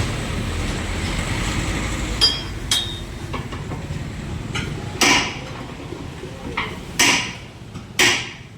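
Hammer blows on a tractor wheel during tyre removal: a handful of sharp metallic clanks, one every second or two, over a steady low rumble that fades about halfway through.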